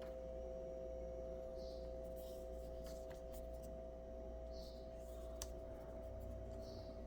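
A steady hum made of two held tones over a low rumble, with a few faint light clicks scattered through.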